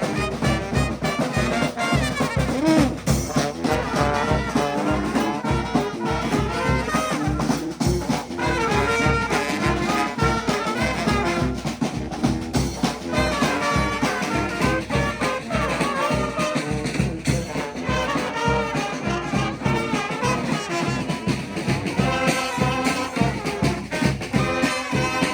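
Brass band playing a lively tune: horns carry the melody over a steady, driving beat.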